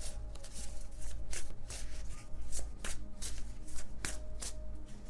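A deck of cards shuffled by hand, with many quick, irregular flicks and slaps of the cards.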